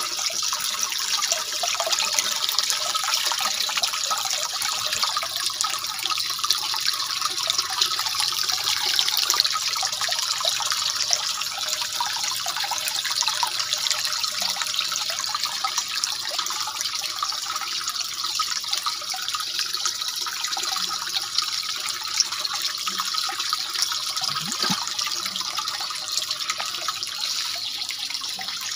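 Water trickling and splashing steadily from a thin hose into a water-filled tank.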